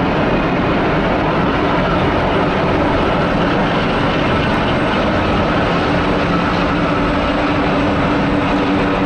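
Several helicopters flying past overhead: a loud, steady drone of turbine engines and rotors. A faint steady hum comes in during the second half.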